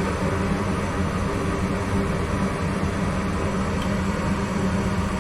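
Gas furnace firing, with the steady hum of its draft inducer motor and the rush of the lit burners; the circulating blower has not yet come on.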